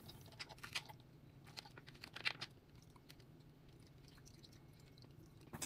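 Near silence with a few faint, scattered clicks and ticks and a small cluster of them about two seconds in.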